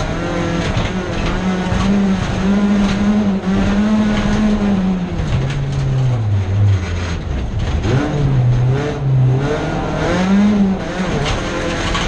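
A folkrace car's engine heard from inside its stripped cabin, running hard on a dirt track. The note falls about halfway through as the throttle comes off, then climbs again with short breaks for gear changes. The bare body shell knocks and rattles throughout.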